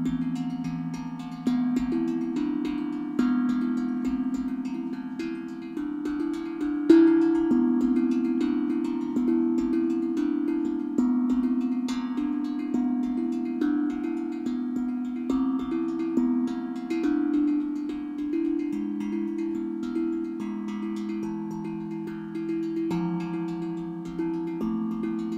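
Steel tongue drum played with the fingers: single struck notes ring on and overlap one another in a slow melody, with the loudest stroke about seven seconds in.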